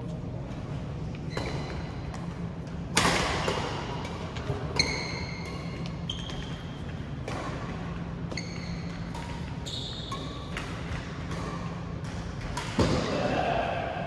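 Badminton rally: sharp racket strikes on the shuttlecock and short high squeaks, with the loudest strikes about three seconds in and again near the end.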